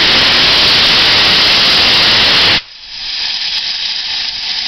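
Un-rebuilt Bulleid Battle of Britain class steam locomotive letting off steam with a loud, steady hiss. The hiss cuts off abruptly about two and a half seconds in, and a quieter hiss carries on after it.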